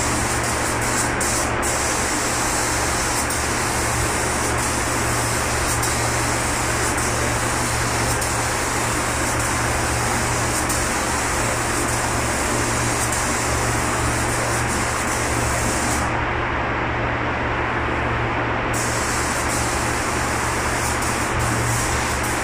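Compressed-air spray gun hissing steadily as it sprays primer, over the constant hum of the paint booth's ventilation. The hiss's high edge cuts out for about two and a half seconds about three-quarters of the way through, then comes back.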